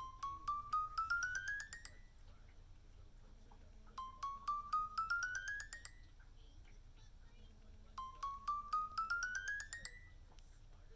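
Medication alarm ringing: a quick run of short beeping notes that climbs steadily in pitch for about two seconds, then a pause of about two seconds, repeated three times. It is the reminder that it is time to take medicine.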